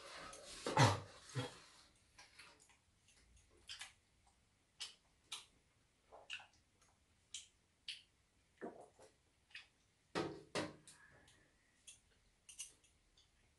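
Scattered light clicks and taps of chopsticks and cups against a metal tray and serving bowl while people eat, with a cough about a second in.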